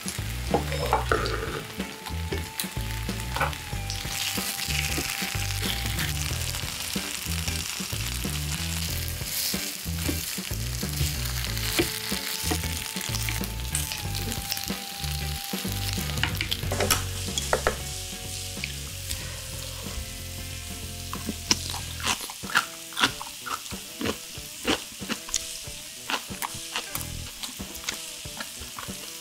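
Marinated beef short ribs (LA galbi) sizzling on an electric grill pan, with clicks and scrapes of metal tongs and kitchen scissors as the meat is handled and cut. About two-thirds of the way through the low rumble drops away and the sizzle softens, leaving sharp clicks of utensils on the pan and dishes.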